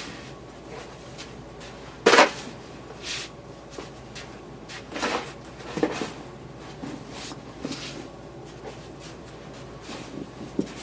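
Snow shovel scraping and crunching into snow in a handful of separate strokes at uneven intervals, the loudest about two seconds in.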